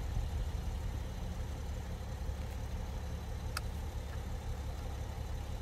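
Steady low rumble of a car engine idling, heard from inside the cabin of a parked BMW E70, with a single light click about three and a half seconds in.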